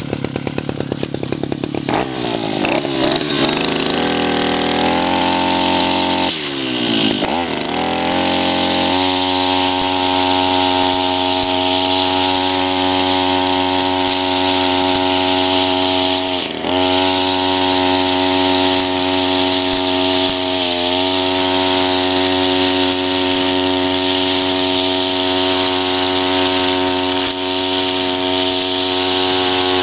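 Two-stroke engine of a Tabata 32 cc backpack brush cutter revving up from low speed over the first few seconds, then running steadily at high speed as its eight-line nylon trimmer head cuts tall, tough grass. The engine speed dips briefly twice, about six seconds in and again midway.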